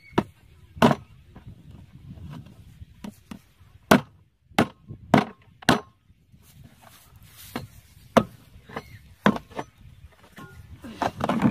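Machete blade hacking into a plastic jerrycan, about a dozen sharp, irregular chops as the can is cut open.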